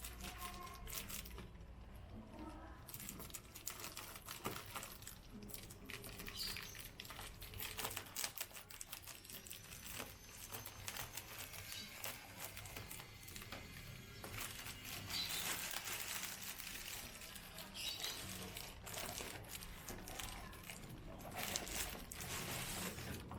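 Crinkling plastic packaging with scattered light clicks and taps, as a boxed solar lamp is handled and unpacked.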